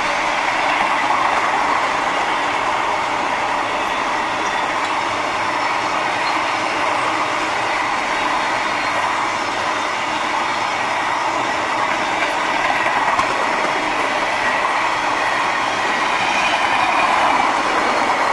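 Freight train's container wagons rolling past close by, a steady loud noise of steel wheels on the rails.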